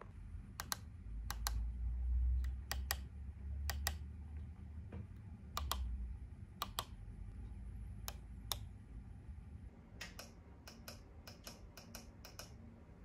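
Push-buttons on a bedside lighting control panel clicking as they are pressed, each press a quick double click, at first a second or two apart and then in faster succession near the end. A low rumble runs under the first half.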